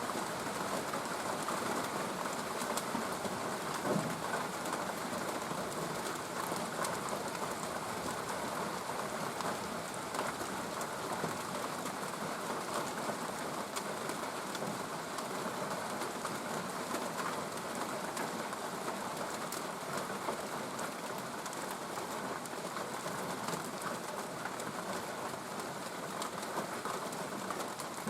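Steady rain falling, a dense patter of drops hitting surfaces. A brief low thud sounds about four seconds in.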